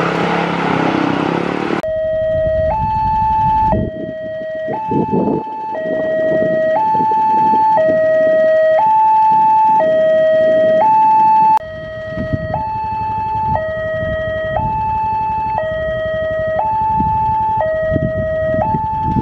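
Railway level-crossing warning signal: an electronic two-tone alarm that alternates between a lower and a higher tone, each held about a second, sounding while the barrier is down for an approaching train. It starts about two seconds in.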